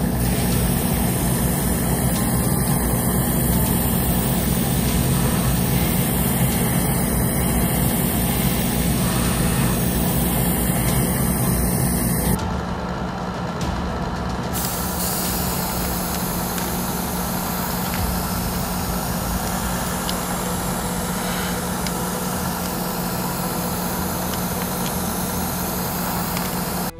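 Airbrush hissing as it sprays primer surfacer, over the steady low hum of a spray booth's fan motor. About twelve seconds in the sound drops a little in level and changes.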